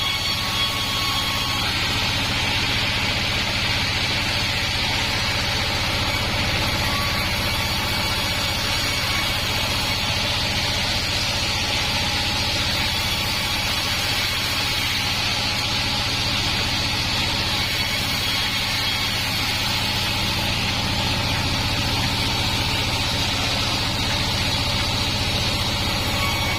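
Sawmill band saw running steadily: a constant low machine hum with an even higher-pitched hiss over it, unchanging throughout.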